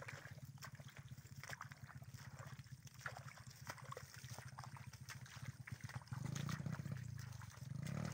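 Footsteps squelching through wet rice-paddy mud and the rustle of a carried bundle of dry rice straw, in short irregular crackles. Under them runs a steady low hum that swells twice, about six seconds in and again at the end.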